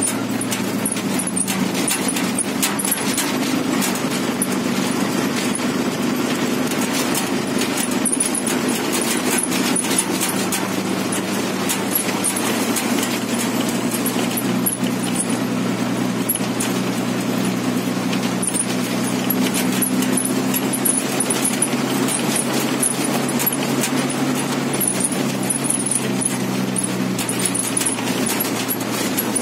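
Inside a moving MSRTC bus: the diesel engine drones steadily, and the bus body and windows rattle continuously.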